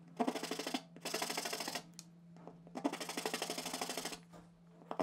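Flat metal hand file rasping across a small carved wooden chess piece, in three bursts of quick strokes with a fine, rapid ticking of the file's teeth on the wood. There is a short pause before the last and longest burst.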